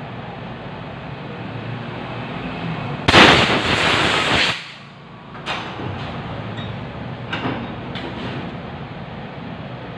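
A sudden loud hiss of spray or blown air, lasting about a second and a half, from cleaning the carburetor's passages. A few light clicks follow.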